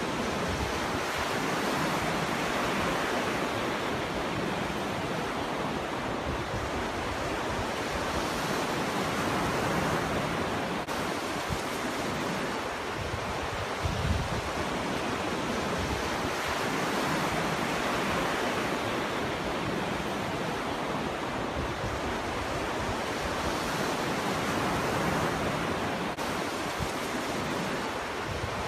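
Ocean waves breaking on a beach, the surf swelling and fading every several seconds, with wind buffeting the microphone in low thumps.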